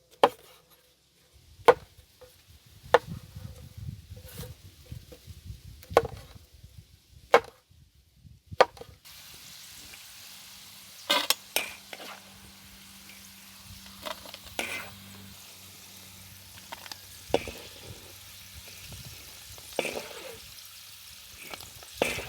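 Cooking work with utensils: a run of sharp knocks, about one every second and a half, for the first nine seconds. After that come scattered softer clicks and knocks over a faint steady hiss.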